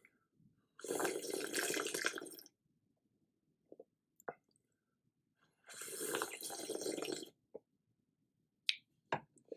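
Two long wet slurps of spicy seafood noodle soup (champong), each about a second and a half, close to the microphone, with a few short small clicks between them and near the end.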